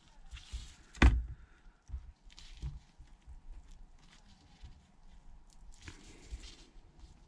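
Handling noises as gloved hands fit a small metal shield plate over an iPhone SE's display connectors to get it sitting flush: a sharp knock about a second in, then soft taps, clicks and glove rustles.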